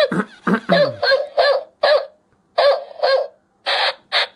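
Plush robot husky toy dog barking through its small speaker: a quick run of about eight short, high yelps, most falling in pitch, then two harsher, noisier barks near the end.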